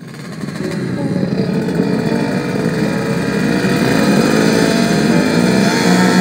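Several motorcycle engines running and revving together, their pitches wavering up and down; the sound swells in over the first second.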